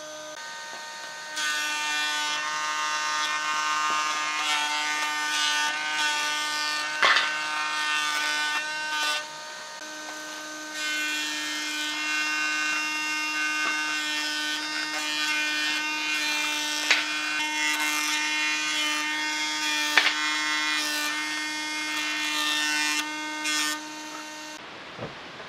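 Thickness planer of a combination woodworking machine running with a steady motor hum, then cutting as a wooden board feeds through in two long passes with a short quieter gap between them and a few sharp knocks. The sound cuts off abruptly near the end.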